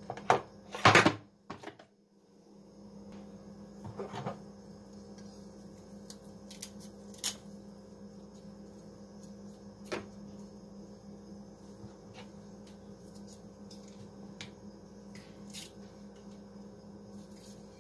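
Kitchen knife and bowl handling sounds as onion is cut by hand over a bowl of seasoned chicken: a loud clatter of knocks about a second in, then a few soft scattered clicks and taps over a steady low hum.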